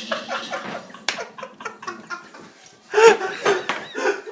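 Several people laughing hard in short bursts, loudest about three seconds in.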